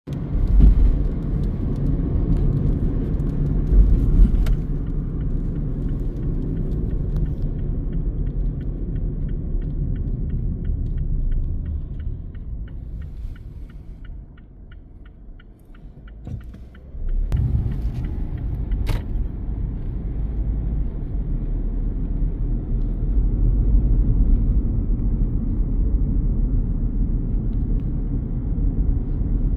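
Low, steady road and engine rumble of a car, heard from inside the cabin while driving. It drops away for a few seconds around the middle and then returns. Before the dip there is a regular ticking, about three ticks a second, and a couple of sharp knocks stand out.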